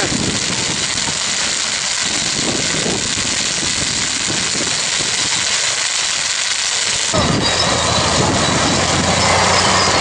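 Dry field stubble burning with a steady crackling hiss. About seven seconds in, this cuts to a bulldozer's heavy diesel engine running while it pushes burning stubble with its blade.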